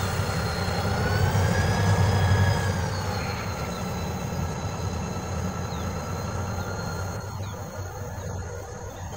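Diesel freight train on metre-gauge track pulling away around a curve: a low locomotive rumble, loudest about two seconds in and then fading, with thin steady wheel squeal from the curve.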